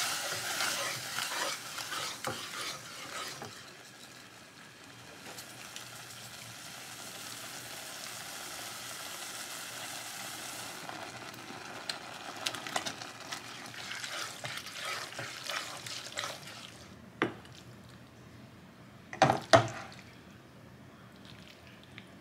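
Tomato sauce sizzling and bubbling in a saucepan while a spatula stirs and scrapes through it, with a steady hiss in the middle stretch. Later come soft clatters as the pasta is stirred in, and a few sharp knocks of a utensil against the pot and bowl near the end.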